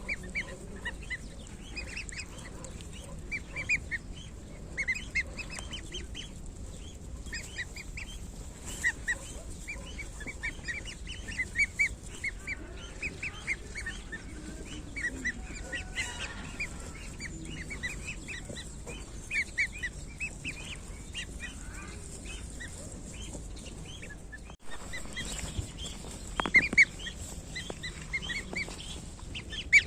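Week-old goose goslings peeping: many short, high calls in quick succession, over and over.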